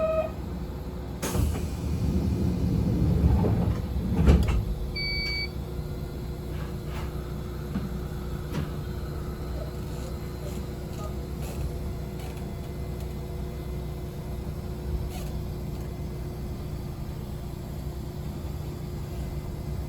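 On board a Yoro Railway local electric train: the doors sliding shut with a knock and a few seconds of clatter and air, then a brief high beep, then the train's steady low rumble.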